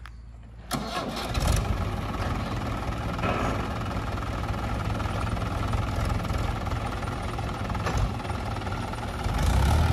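Diesel engines of two Mahindra tractors, a 415 DI and a 575, chained back to back and running under load in a tug-of-war pull. The engine noise jumps up suddenly about a second in, holds steady, and grows louder again near the end.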